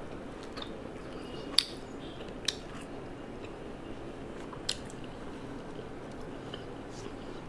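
Close-miked eating: chewing and biting, with three sharp clicks, the loudest about a second and a half in.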